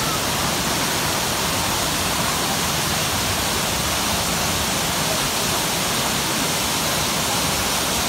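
Tortum Waterfall's water pouring down a high rock face close by: a steady, even rush of falling water and spray.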